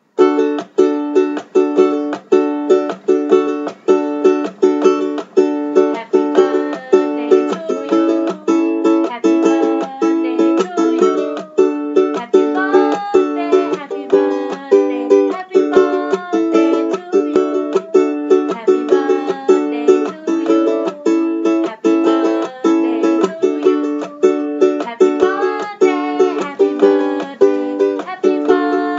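Ukulele strummed in a steady rhythm, with a woman's voice singing a melody along with it.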